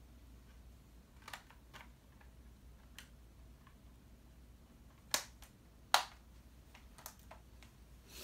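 Plastic and metal clicks of a Blu-ray SteelBook case and its discs being handled: scattered light clicks, with two sharp snaps about five and six seconds in.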